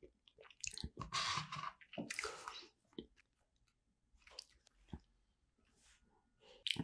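Close-miked chewing of a cream-filled blueberry cheesecake macaron, coming in short separate bursts of mouth noise. There is a sharp, crisp bite into the macaron shell about five seconds in.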